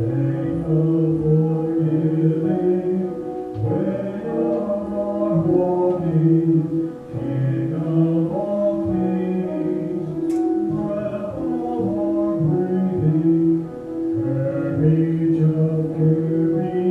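Men singing a slow church anthem in phrases, accompanied by piano.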